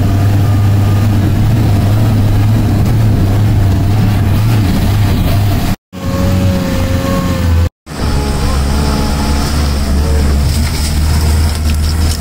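Engine of a custom-built LuAZ off-roader running steadily under way. The sound breaks off twice for a moment near the middle, and after the second break the engine hum is somewhat lower.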